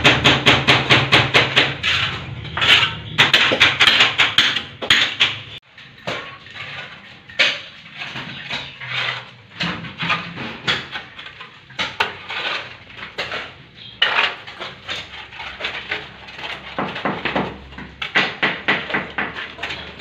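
Hammer strikes chipping old ceramic floor tiles loose: a fast run of about five blows a second at first, then slower irregular knocks with the clink of tile shards. Another quick run of strikes comes near the end.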